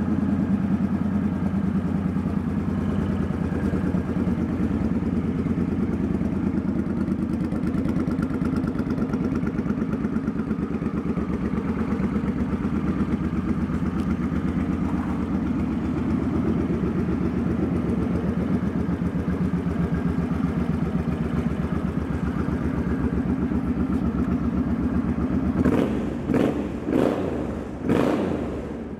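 2006 Suzuki Boulevard M50's 805 cc V-twin idling steadily, then revved in a few quick throttle blips near the end.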